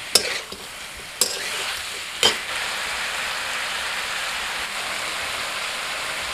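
Broiler chicken pieces sizzling in oil in a steel kadai. A spatula scrapes and taps against the pan three times in the first couple of seconds, then a steady sizzle.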